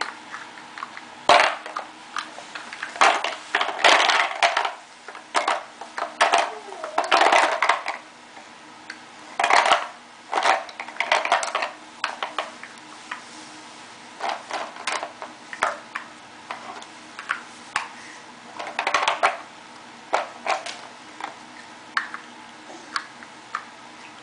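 Wicker basket crackling, creaking and knocking as a toddler grabs, pushes and lifts it: an irregular run of short crackles and knocks, some in quick clusters.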